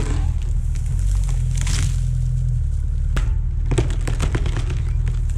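Tracked excavator's diesel engine running steadily under load, with scattered sharp cracks and snaps of wood as the machine pushes over a tree, and a brief rushing hiss just before two seconds in.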